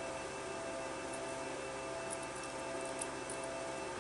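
Steady electrical hum of several thin, unchanging tones, with a few faint light ticks of small parts being handled as the DVD loader mechanism is worked on.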